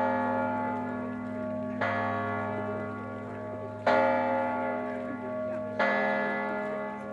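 A church bell tolling slowly, struck four times about two seconds apart, each stroke ringing on over a lasting low hum.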